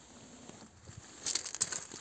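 Footsteps crunching on loose gravel: a short run of crisp crunches beginning just over a second in.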